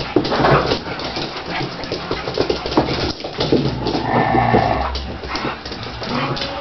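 Siberian husky puppies and an adult husky play-fighting, with short, irregular dog vocal sounds and scuffling throughout, and a held pitched cry about four seconds in.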